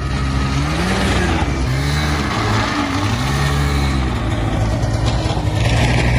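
A motor vehicle's engine running loud and steady, revving up and down several times over a rushing noise.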